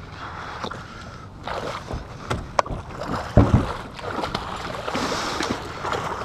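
Water splashing and sloshing around a kayak, broken by several sharp clicks and knocks, with one heavy thump about halfway through.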